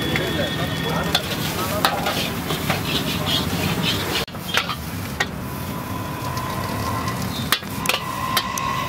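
Prawn fried rice sizzling in a hot iron wok while a metal ladle stirs and scrapes it, with sharp clanks of the ladle striking the wok now and then. The sound breaks off briefly about four seconds in.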